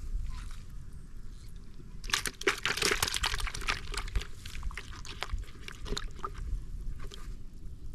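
Water splashing and sloshing in a dense run for a few seconds, over a low rumble.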